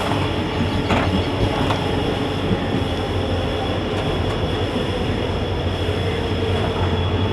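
Train running along the rails: a steady rumble with a low hum and a couple of faint clicks about a second in.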